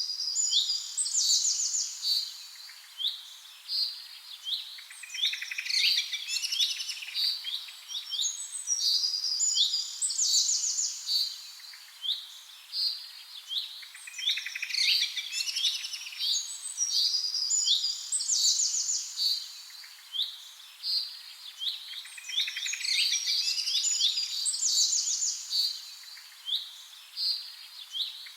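Several small birds chirping and singing together: a dense chorus of quick high chirps and rapid trills that come in overlapping bursts every few seconds.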